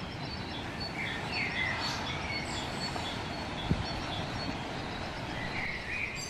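Rural outdoor ambience: a steady background hiss with birds chirping a few times, and one light click near the middle.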